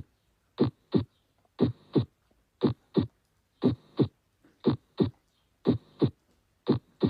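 Human heart sounds in a steady lub-dub rhythm of about one beat a second, seven pairs of thumps with a short gap inside each pair. The lub is the atrioventricular valves closing and the dub is the semilunar valves closing, with no murmur between them.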